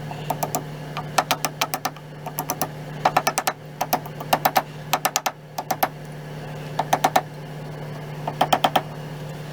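Light, quick taps in short bursts of three to six, with a slight ring, as a hand-made metal rear handguard retainer is tapped down over the barrel into the receiver of a Krag carbine. It is a tight fit, not a slip fit, so it has to be driven on a little at a time.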